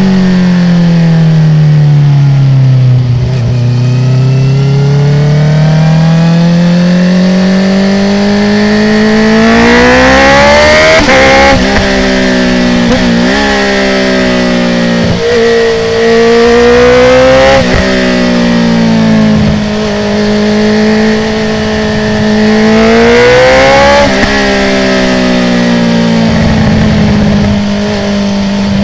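Honda CB650R inline-four engine through a full Akrapovic titanium exhaust with the dB killer out. It winds down as the bike slows, then pulls hard. The pitch climbs and drops several times at the quickshifter gear changes, with short sharp cracks at some of the changes.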